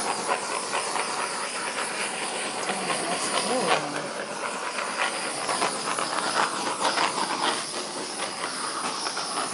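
Handheld gas torch hissing steadily with scattered crackles as its flame is passed over fresh epoxy resin to pop the air bubbles.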